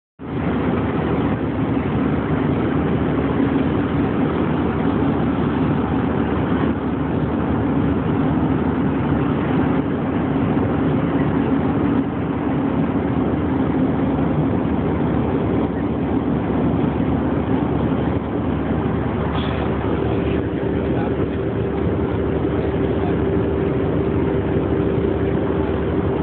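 Steady cabin roar of an Airbus A321 in flight, engine and airflow noise heard inside the cabin at a window seat over the wing. A low hum runs under it, and a second, slightly higher steady hum joins about two-thirds of the way through.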